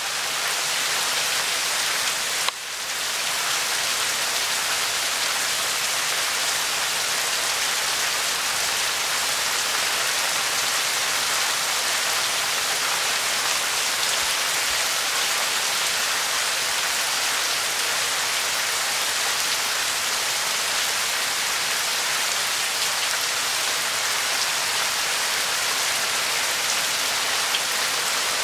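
Heavy rain falling steadily on stone and concrete, a dense even hiss. A single brief click sounds about two and a half seconds in.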